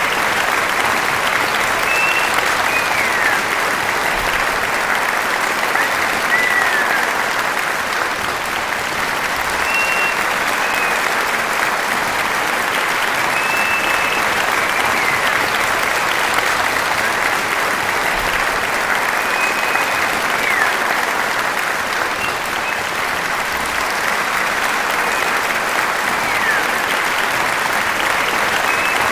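Large crowd applauding steadily, dense continuous clapping, with scattered short high-pitched tones over the top, some gliding down in pitch.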